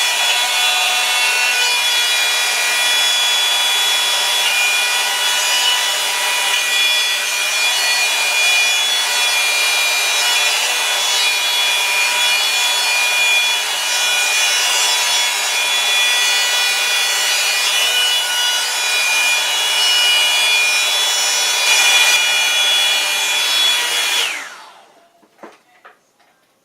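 Revlon One-Step hair dryer brush running steadily, a motor whine over rushing air, while it works through a section of hair. Near the end it is switched off, its pitch falling as it winds down.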